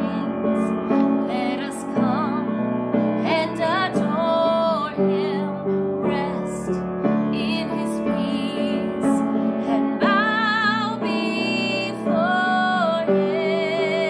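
A woman singing a Christmas worship song with piano accompaniment, several long notes held with vibrato.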